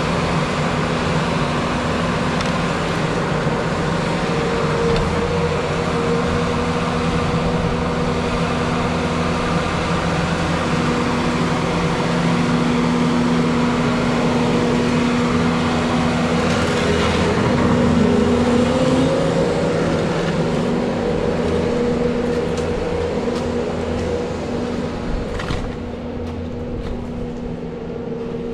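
Diesel engine of a Bobcat skid-steer loader running steadily under work, its pitch rising briefly and getting louder about two-thirds of the way through, then easing off near the end.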